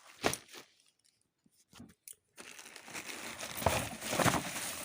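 Parcel packaging crinkling and tearing as it is handled and pulled open: a brief rustle, a pause of about two seconds, then a longer stretch of rustling.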